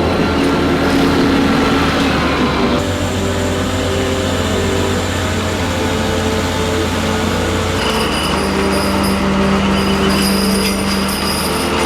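Vehicle engines running steadily as a large boat is hauled along the road, with a thin high whine that comes in about eight seconds in.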